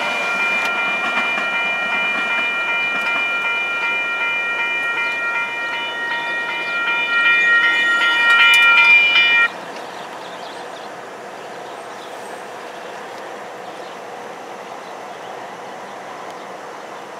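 Union Pacific ethanol tank-car train rolling past. Over the rolling noise a steady, high-pitched chord of several tones grows louder, then cuts off suddenly about nine and a half seconds in. After that only the quieter rumble of the cars goes on.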